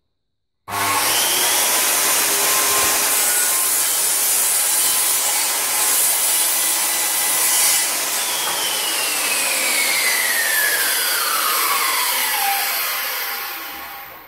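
Circular saw cutting through a chipboard panel, starting suddenly about a second in and running steadily. From about eight seconds in, the blade winds down with a falling whine that fades out near the end.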